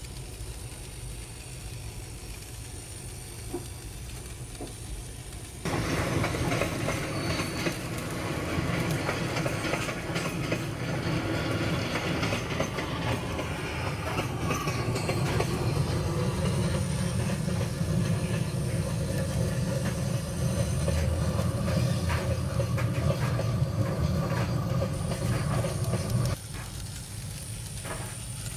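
Model diesel locomotive running on an Atlas EMD MP15DC chassis, with a rapid patter of fine clicks. It becomes suddenly louder about six seconds in and drops back to a quieter steady hum about twenty-six seconds in.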